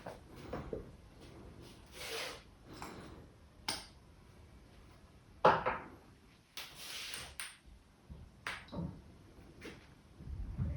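Hands massaging a person's head and neck: irregular slaps, rubbing and sharp clicks, the loudest about five and a half seconds in.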